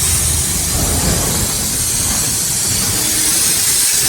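High-pressure washer jet spraying with a loud, steady hiss.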